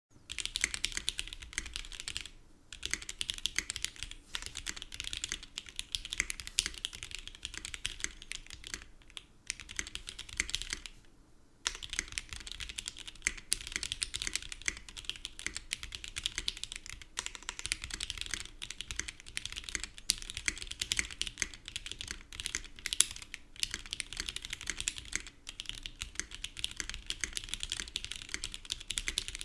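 Typing on a GMMK Pro custom mechanical keyboard with lubed and filmed Alpaca linear switches, an FR4 plate, foam dampening and GMK ABS keycaps: a dense, fast run of keystroke clacks with a few brief pauses, the longest about eleven seconds in.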